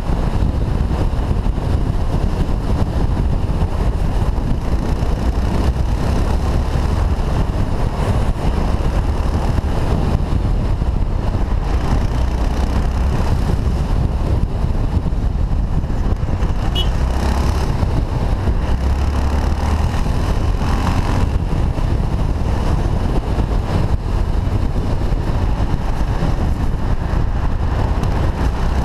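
Wind rumble on a helmet-mounted camera's microphone over a motorcycle engine running at road speed, with surrounding car and truck traffic. Steady and loud, without pauses.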